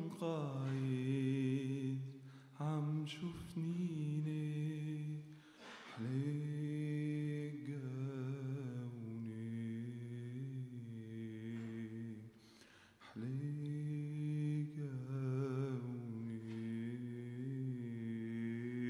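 A man sings a Syriac hymn unaccompanied, in long held, ornamented vowel phrases with short pauses about 2.5, 6 and 13 seconds in.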